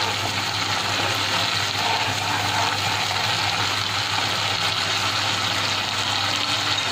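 Bengali spice paste frying in hot mustard oil in a kadai, sizzling steadily as it is stirred: the masala is being fried down until the oil separates. A steady low hum runs underneath.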